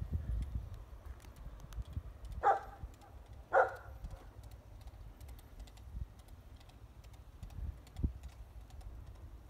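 A young Rottweiler barks twice, about a second apart, a few seconds in, over a low steady rumble.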